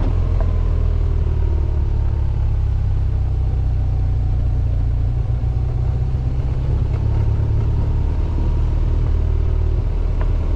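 A 2011 BMW R1200GS Adventure's boxer-twin engine running steadily on a gravel track, heard from the bike under a heavy low rumble of wind and road noise. The engine note dips slightly, then rises again near the end.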